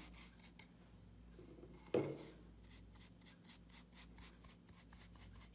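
Round bristle wax brush rubbing black furniture wax onto a painted wooden board in quick, repeated strokes, about five a second, faint. A brief louder sound about two seconds in.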